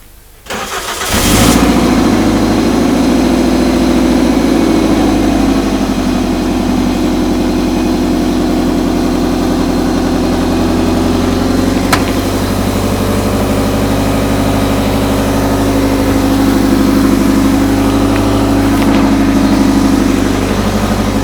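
Toyota MR-S's 1.8-litre four-cylinder engine starting and catching within the first second or so, then idling steadily. A single sharp click sounds about halfway through.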